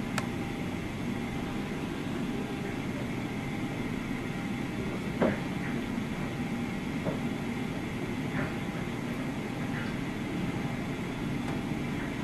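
Liebherr R 964B hydraulic excavator running steadily while digging demolition rubble, with occasional clanks of bucket and debris, the loudest about five seconds in.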